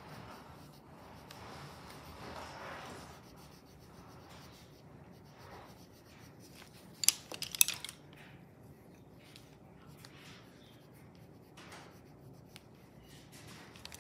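Coloured pencils rubbing and scratching on paper as a drawing is shaded, with a quick cluster of sharp clicks a little past halfway.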